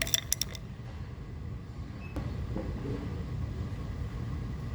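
A quick run of sharp metallic clicks in the first half second, then one faint tick about two seconds in, from metal parts of a stacker's load-wheel hub being worked on by hand, over a steady low hum.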